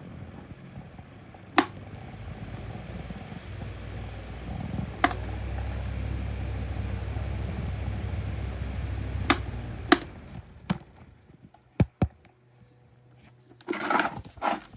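2019 Schallen 12-inch desk fan motor running with a low hum and scratching from its badly worn bearings. Sharp clicks come at intervals, and the motor sound fades away about ten seconds in.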